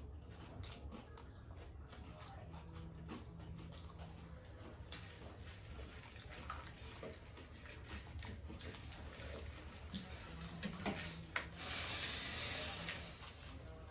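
Faint, irregular crunching and mouth clicks of someone chewing jhal muri, a spiced puffed-rice snack, with a brief hiss-like noise near the end.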